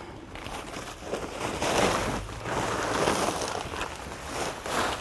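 Rustling and sloshing as the rope-tied sacking cover is opened on a drum of straw soaking in water, in several uneven waves of noise.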